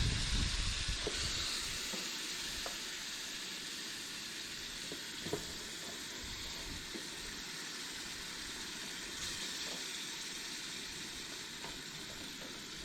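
Chili and hamburger sizzling in a very hot pan: a steady frying hiss with a few faint pops. A low rumble is heard in the first second or two.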